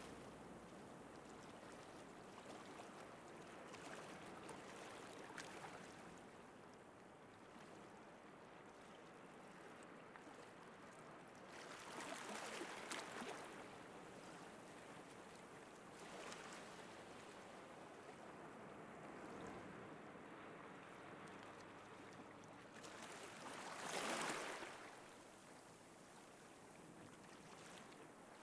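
Faint sea surf on a sandy beach: a steady wash with two louder waves breaking and washing in, about halfway through and again near the end.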